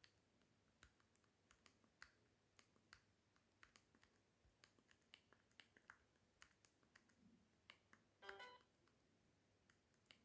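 Faint, irregular clicking of a Sagem my501X mobile phone's keypad buttons being pressed, with one short beep about eight seconds in.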